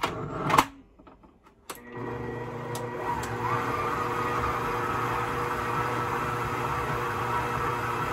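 A brief clatter near the start, then about two seconds in an electric stand mixer starts up and runs at a steady speed, kneading bread dough with its dough hook.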